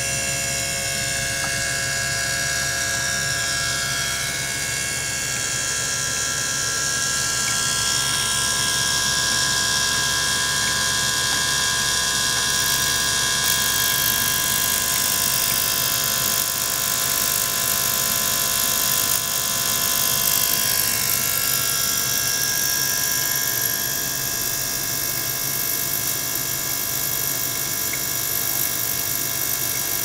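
Small liquid-circulation pump running steadily, a whirring motor hum with several constant whining tones over it, pumping water and air through the tank.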